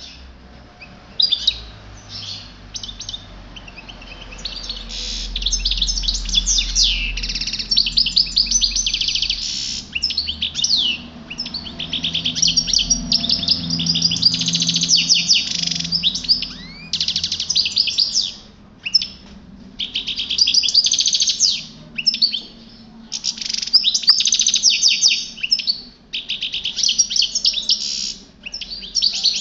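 European goldfinch singing: fast, twittering song phrases full of quick chirps and trills, delivered in a string of bursts with brief pauses between them.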